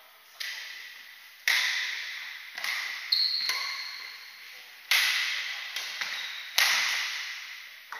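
Badminton rackets striking a shuttlecock in a rally, sharp cracks about every second or so, each echoing on in a large hard-walled hall. A short high squeak sounds about three seconds in.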